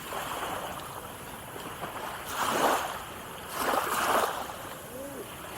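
Sea surf washing ashore, with two louder waves breaking about two and a half and four seconds in.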